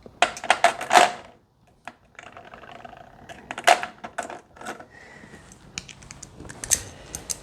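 Small hard parts and tools clicking and clattering while guitar hardware is taken apart: a quick run of sharp clicks in the first second, then scattered single clicks, and a busier patch of clicks near the end.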